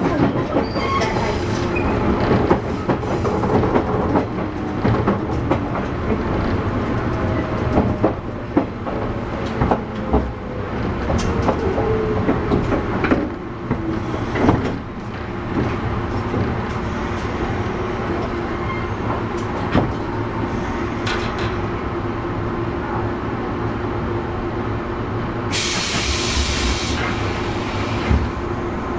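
Interior running sound of a 117 series electric multiple unit's motor car: wheels clattering and knocking over the rails, with a whine falling slowly in pitch in the first half, then a steadier hum. Near the end comes a short hiss of air.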